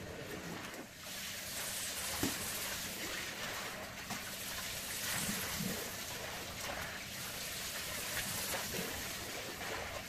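Water noise from a rug being washed: a steady wash of sound that comes up about a second in, with a faint steady hum beneath it.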